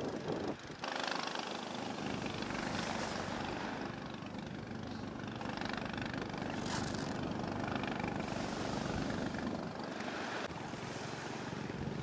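Long-tail fishing boat's engine running steadily.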